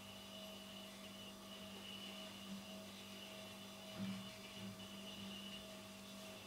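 Steady faint electrical hum made of a few constant tones over light hiss: room tone, with a slight swell about four seconds in.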